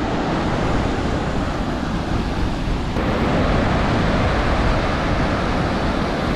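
Wind buffeting the microphone over the steady wash of surf on the beach, a continuous rushing rumble with no distinct events.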